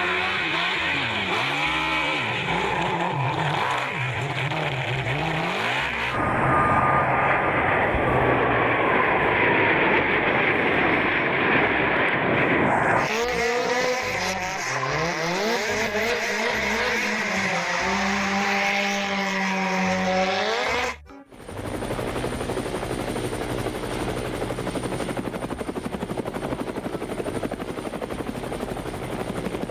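Vehicle engines revving, their pitch rising and falling, in several abruptly cut pieces, settling into a steadier running sound about two-thirds of the way through.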